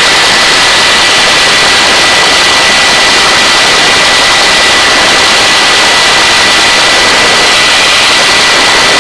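Search and rescue helicopter hovering: a loud, steady rush of turbine engine and rotor noise with a thin high whine running through it.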